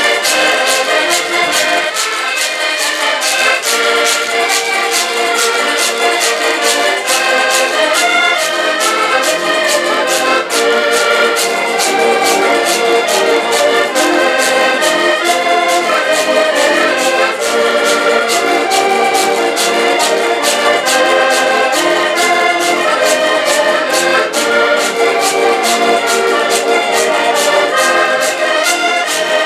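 A Portuguese folk group of six button accordions and a cavaquinho playing a tune together, with a steady, regular beat.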